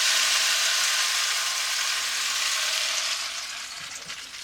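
Rain stick tipped steeply to make a downpour: a dense, steady hiss of pellets cascading down the tube past its inner baffles, dying away about three seconds in.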